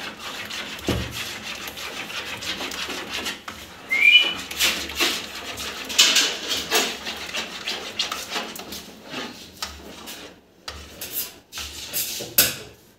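Workroom clatter: scattered clicks, knocks and rubbing noise, with a short rising high-pitched chirp about four seconds in.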